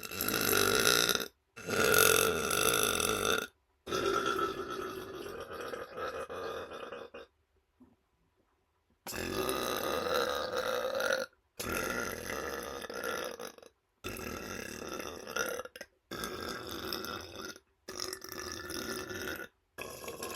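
A man burping: a run of about nine long, drawn-out belches of one to three seconds each, one after another with short breaks, the first two the loudest.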